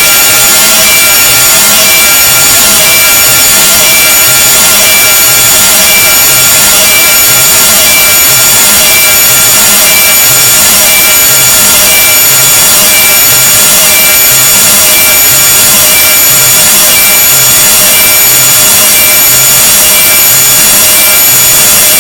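Very loud, harsh grating noise, an abrasive sound effect made to be unpleasant, with several steady high-pitched whines over it and a slow low pulse about once a second.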